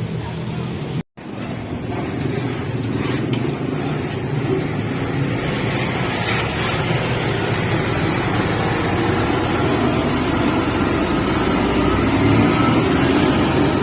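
Diesel bus engine running close by, a low rumble that grows louder toward the end, with a brief silent break about a second in.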